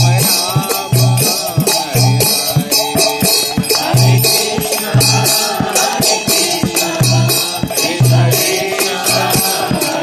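Devotional chanting of a mantra by voices, with hand cymbals keeping a fast steady beat of about four strikes a second and low thuds falling between them.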